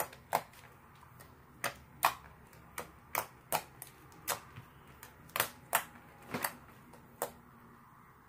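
Clear-glue slime being pressed and kneaded by hand, giving off sharp popping clicks at an irregular pace of about two a second, which stop about a second before the end.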